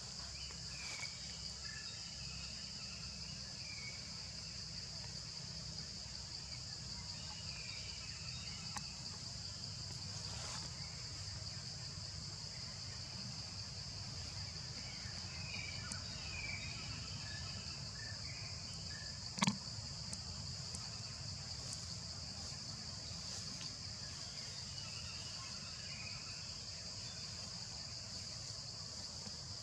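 Steady high-pitched insect drone of a forest insect chorus, with scattered faint chirps over it and a single sharp click about two-thirds of the way through.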